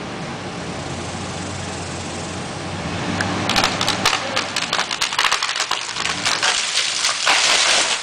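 An elm tree coming down: after a few seconds of a steady engine hum, a run of sharp cracks and snaps of breaking wood starts, building to a loud, dense crash of limbs and branches hitting the ground near the end.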